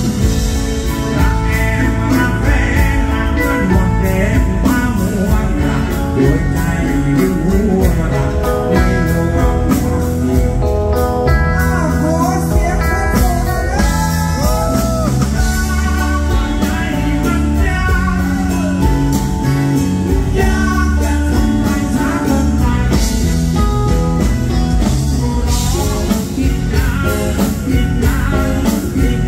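A live rock band playing a blues-tinged rock song, with electric guitar, drums and keyboards, and a male lead singer singing over it.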